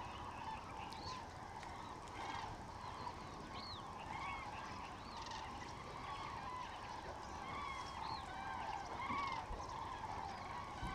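A large flock of water birds calling all at once, a steady, dense chorus of honking calls with short, higher calls rising and falling over it.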